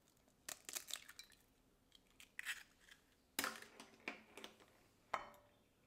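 Kitchenware being handled at the start of baking prep: short clinks and taps in five small clusters, the later ones with a brief ring like a utensil or container knocking against glass or a bowl.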